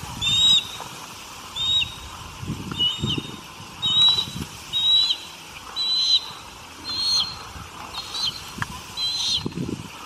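A bird of prey calling: a series of short, high, down-slurred call notes, about one a second, over a steady background hiss.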